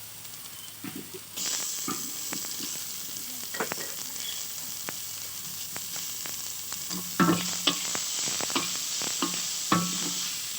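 Chopped garlic, ginger, onion and chilli sizzling in hot oil in a kadai, stirred with a spatula that scrapes and knocks against the pan. The sizzle gets louder about a second and a half in, and the spatula knocks harder several times in the second half.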